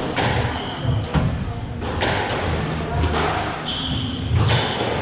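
Squash rally: the ball cracks sharply off racket and walls about once a second, while the players' court shoes squeak and thud on the floor, ringing in the enclosed court.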